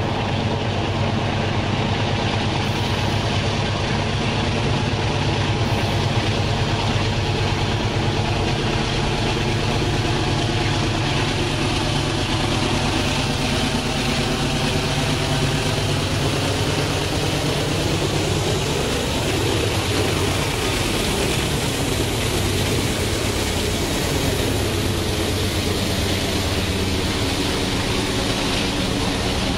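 Canadian Pacific GE AC4400CW diesel locomotives working under power, a steady heavy engine chugging that builds as they approach and shifts as they pass about twenty seconds in. Grain hopper cars rolling by near the end.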